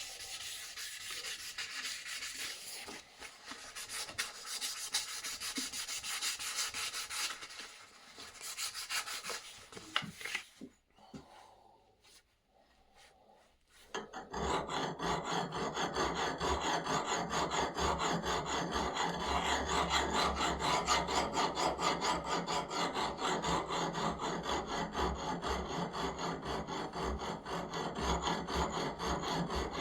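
Repeated rasping, rubbing strokes of a tool worked over a surface, with a pause of a few seconds about halfway through, after which the strokes come back denser and steadier.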